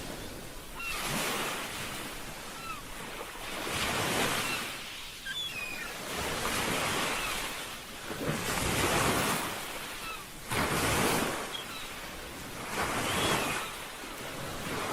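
Ocean surf: waves breaking and washing in, swelling about every two to three seconds, with faint short high chirps scattered through.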